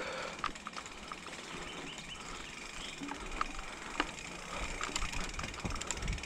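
Mountain bike rolling slowly over a dirt trail: tyre noise with scattered, irregular clicks and rattles from the bike.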